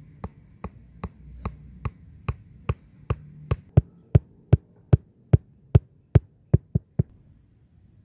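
A regular series of sharp knocks, about two and a half a second, growing louder and stopping about seven seconds in, as a wooden stake is driven into hard, dry ground.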